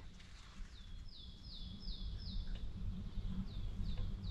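A songbird singing a run of about five quick, clear notes, each sliding down in pitch, then after a short pause a second run of about three. A steady low rumble runs underneath.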